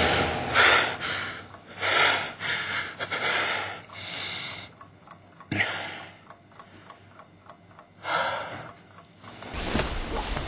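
A man breathing hard in a series of gasping breaths after waking with a start, the breaths coming in separate bursts. Near the end the bedclothes rustle as he settles back down.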